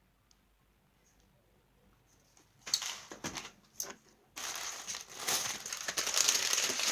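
Paper packing stuffing being handled and crumpled in the box, crinkling. It starts a little over halfway in with a few short bursts, then turns into steady rustling.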